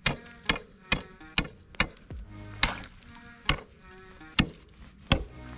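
Ice spud bar jabbed down onto thin, clear lake ice, about nine sharp chopping strikes at an uneven pace, each leaving a brief ring. The strikes sound out the ice, about an inch and a half to a couple of inches thick, to check that it will hold before stepping further out.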